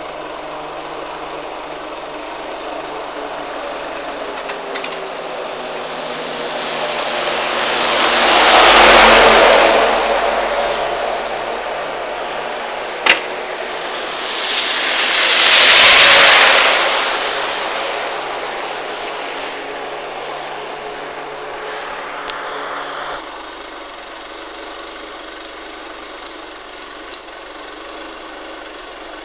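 Electrical arcing after a snowstorm: a steady noisy buzz with a faint hum under it, and a single sharp crack about 13 seconds in. Twice, about 9 and 16 seconds in, a rushing noise swells up over a few seconds and dies away again.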